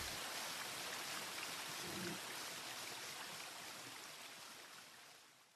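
A steady rushing hiss like running water, with no music left over it, fading out over the last second.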